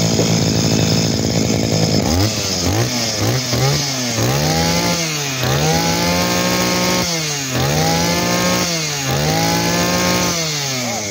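Small 20cc two-stroke engine of a Makita brush cutter. It idles for about two seconds, then the throttle is blipped quickly several times, then opened in four longer revs that rise and fall back, easing off near the end. It runs and revs cleanly, which the seller takes as the sign of an engine in very good running order.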